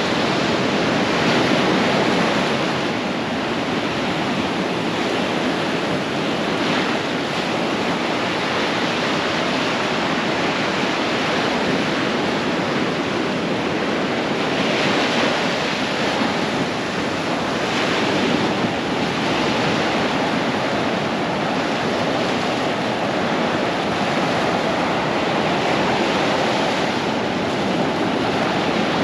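Ocean surf: small waves breaking and washing up a sandy beach, a steady rushing that swells now and then as a wave breaks.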